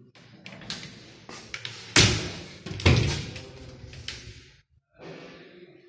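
Wooden cabinet doors being handled: a run of clicks and knocks, with two loud bangs about a second apart in the middle.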